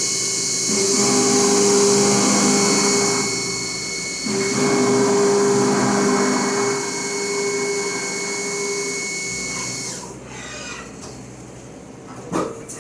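Haas CNC milling machine cutting aluminium: a steady whine from the spindle and cutting over a high hiss. About ten seconds in it falls much quieter, and a short loud sweep in pitch comes just before the end.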